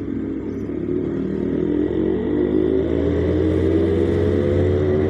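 Motorcycle engine heard from the bike itself, speeding up as the bike gathers pace, its note rising steadily and growing louder.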